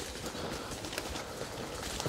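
Footsteps of people walking over rough ground, an irregular series of crunching steps.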